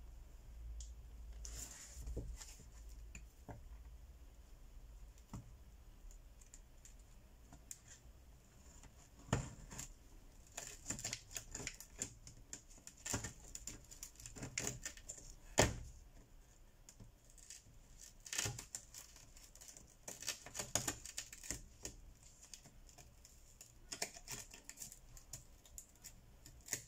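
Irregular clicking, scraping and crackling of a pry tool worked under the edge of a cracked smartphone screen as the shattered display glass and its adhesive give way, with a few sharper snaps along the way.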